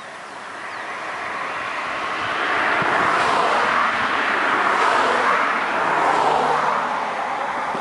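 Gust of wind rushing through a stand of bamboo, the leaves rustling; it swells from about a second in, holds loud through the middle and eases a little near the end.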